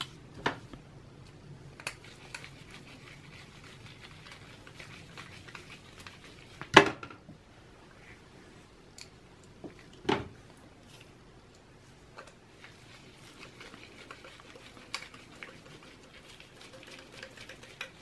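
Screwdriver turning mounting screws into the side of a 3.5-inch hard drive, with scattered small metal clicks and light scraping as the drive is handled. Two louder knocks stand out, about seven and ten seconds in.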